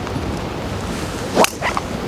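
Gusty wind blowing across the microphone, with one sharp strike of a golf club on the ball about one and a half seconds in.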